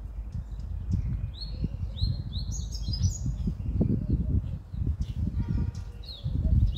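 Small birds chirping: a run of short, quick notes that fall in pitch, then a few more near the end. Beneath them is an irregular low rumble on the microphone that is louder than the birds.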